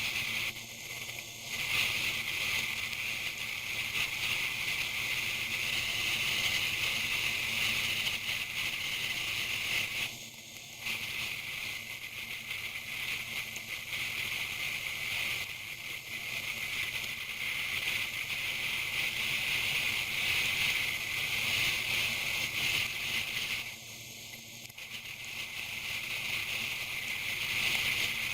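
Steady rushing wind and rain noise on a camera riding on a motorcycle in the rain, with the engine barely audible beneath it. The rush dips briefly about ten seconds in and again near the end.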